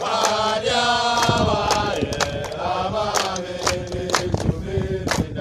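A group of young men singing a song together, clapping their hands in time about twice a second.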